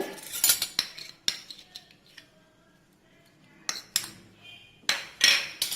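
A spoon clinking and tapping against a bowl as salt is measured and added to dry ingredients: several short sharp clinks in the first second, a quieter spell, then more clinks near the end.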